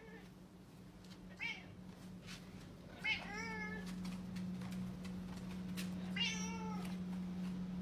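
Domestic cat meowing three times: a short meow about a second and a half in, then two longer, drawn-out meows around three and six seconds in, calling for attention.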